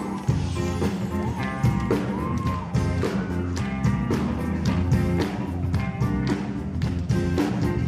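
Background pop-rock music with a steady drum beat.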